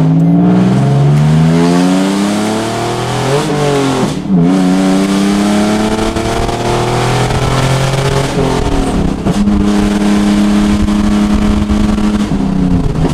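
Hyundai Genesis Coupe 3.8's V6 engine heard from inside the cabin during a hard pull from first gear. The revs climb, drop at gear changes about four and nine seconds in, then hold steady.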